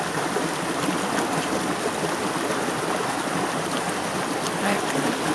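Steady rush of stream water running over rocks.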